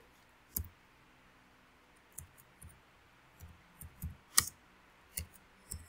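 Computer keyboard keystrokes: a dozen or so separate clicks at an uneven, unhurried pace, the loudest about four and a half seconds in.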